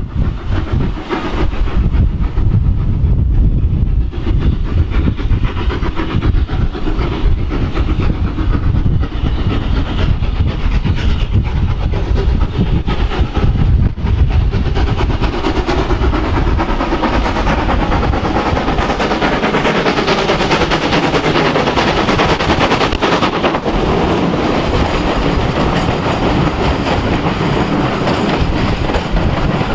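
Hunslet 0-6-0 tank engine steam locomotive approaching and passing with its train. Its sound fills out and grows louder from about halfway through, and as the coaches go by their wheels clatter over the rail joints.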